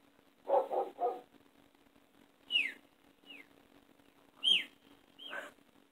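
A head-tilt sound clip played through a small Bluetooth speaker. About half a second in come three quick dog-like yips, then four separate whistle-like squeals, each falling in pitch.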